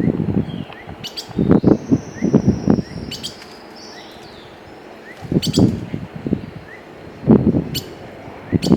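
Small songbirds chirping and whistling, from an added bird-sound track. Louder irregular low rustles and thumps come in bunches about a second in, midway and near the end.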